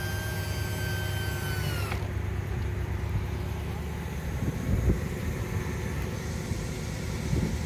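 1968 Chevrolet Impala convertible's power-top motor whining as the top folds down, dropping in pitch and stopping about two seconds in, over the steady rumble of the idling engine. A few dull knocks follow, the loudest about five seconds in and near the end.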